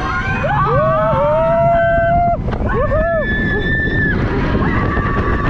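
Roller-coaster riders whooping and screaming, long held yells at several pitches, over the rush of wind and the rumble of the train on the track as the ride accelerates out of the station.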